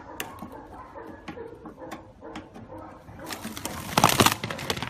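Aluminium foil flexible duct hose crinkling loudly for about a second as it is handled, a little past the three-second mark, after a few light metallic clicks from a screwdriver working the hose's clamp collar.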